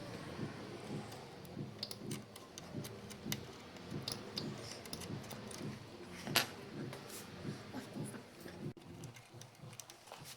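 Light, repeated scraping of a small metal tool on the metal plate at the DC power jack's middle pin, roughening it for solder to cure a bad connection, with scattered small clicks and one louder click about six seconds in.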